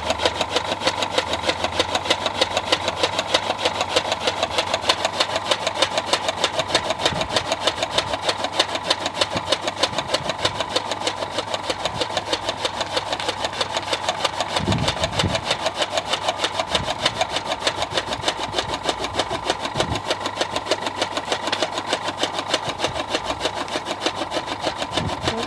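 Electric chaff cutter (fodder chopper) running steadily, its blades chopping green fodder in a rapid, even rhythm over a steady motor hum.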